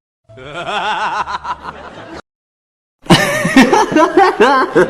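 Two separate laughter clips. First a person chuckles softly for about two seconds; after about a second of silence, a louder burst of laughter starts and runs on.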